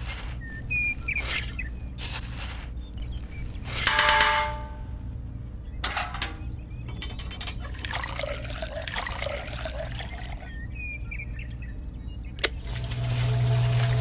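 Small metal spoon scraping and tipping sand and cement into a toy concrete mixer's tin-can drum, with a metallic ring about four seconds in; then water is poured into the can from a small bucket. Near the end a click is followed by a steady hum from a small electric motor starting.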